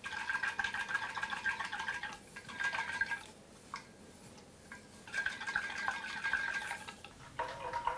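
Hot water sloshing inside a closed stainless-steel food thermos as it is tipped and shaken to preheat it, with a ringing tone through the sloshing. It comes in two bouts with a short pause near the middle.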